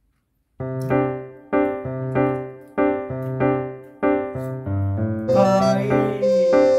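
Background music: a keyboard tune of short, repeated chords over a bass line, starting about half a second in, with more instruments joining after about five seconds.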